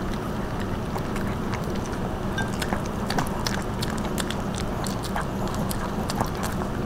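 Two small dogs, a Pomeranian and a Bichon Frise, chewing and biting pieces of dog pizza held out by hand: irregular wet munching clicks over a steady low hum.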